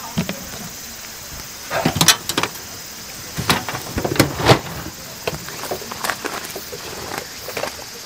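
Camping gear being handled and packed away: a series of knocks and clatters, bunched about two seconds in and again around four seconds in.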